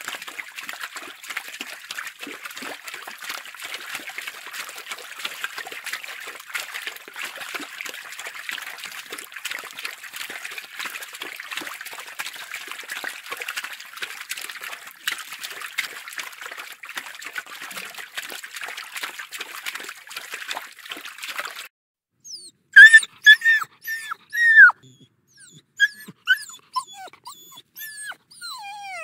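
Steady splashing and trickling of water from a dog swimming, cutting off suddenly. Then a puppy whimpering in a run of short, high whines, several falling in pitch, the loudest right after the change and fainter ones toward the end.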